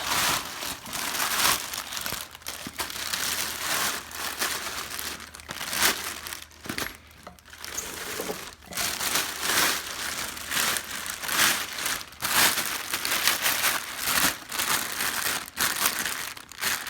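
Plastic packaging being crumpled and pulled off a boxed electric scooter, crinkling in irregular bursts.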